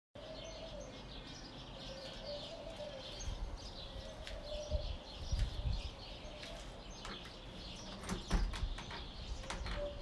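Many small birds chirping and twittering steadily, with a few low rumbles from wind on the microphone about halfway through and again near the end.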